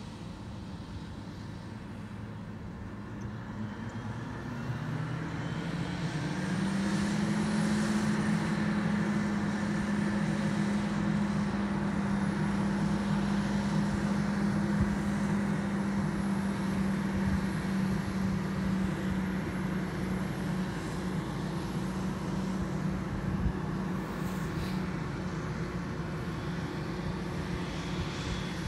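Claas self-propelled forage harvester running while chopping maize, a steady heavy engine drone. About five seconds in its note rises and grows louder, then holds steady with a thin high whine above it, slowly fading a little toward the end.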